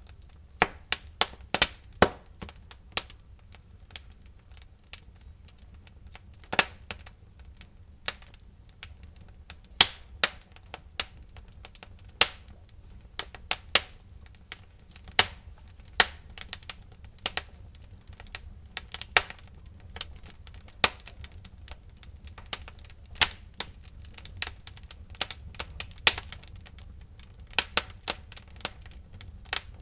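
Wood fire crackling: irregular sharp pops and snaps, one or two a second, over a steady low rumble.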